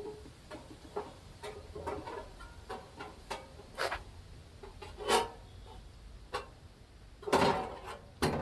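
Irregular clicks and knocks from the parts of a window box fan being handled and fiddled with during a repair. Near the end there is a louder clatter and a final sharp knock.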